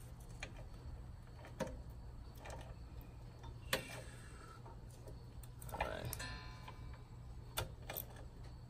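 Ratchet wrench turning the side stand pivot bolt on a Royal Enfield Himalayan: scattered sharp metallic clicks, with a quick run of even ratchet-pawl clicks a little after halfway, as the bolt is tightened.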